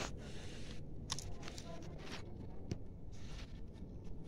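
Clear plastic transfer film being peeled slowly off vinyl sticker lettering on a car window: a soft rustling crinkle of the film, with a few small sharp clicks.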